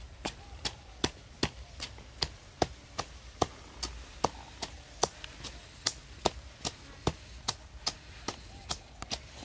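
Wooden pestle pounding into a small bowl, a steady rhythm of sharp knocks about two and a half strokes a second.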